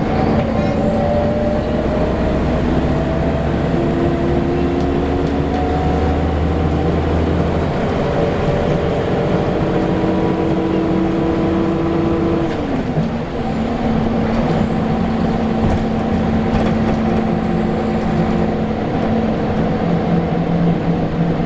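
Scania L94UB single-deck bus engine running under way, its note climbing slowly as the bus gathers speed, then dropping abruptly about halfway through before settling to a steady run.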